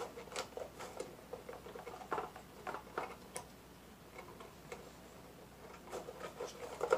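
Small irregular plastic clicks and taps as hands work at a GoPro Hero 7 Black and its mounting frame, trying to get a piece off.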